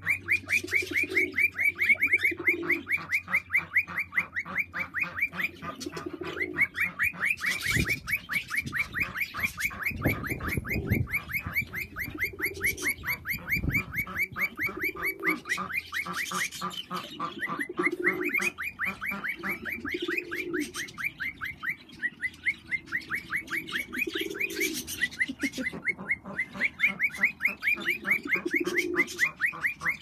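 Cockatiels calling in a fast, steady run of high chirps, broken by short pauses. A pigeon coos low every few seconds. A few low thumps come near the middle.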